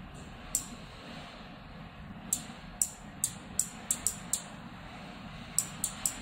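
Small electromechanical relay module clicking on and off repeatedly as its contact is triggered: one sharp click under a second in, then a quick irregular run of clicks from about two to four and a half seconds, and another run near the end.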